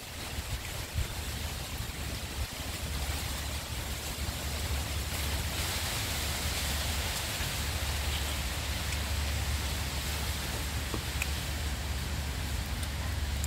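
Light rustling and crinkling of a woven coconut-leaf wrapper as puso (hanging rice) is peeled open by hand, over a steady hiss and low rumble of outdoor noise, with a few faint clicks near the end.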